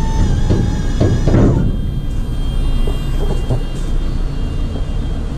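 Electric hydraulic tipper pump on a Ford Transit tipper truck running, a steady whine over a low rumble as it drives the ram that raises the tipper body; the whine shifts in pitch about a second and a half in.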